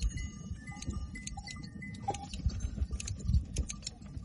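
Goat shearing by hand: many short sharp clicks and snips of shears cutting through goat hair, with brief high clinks, over a low rumble of wind on the microphone.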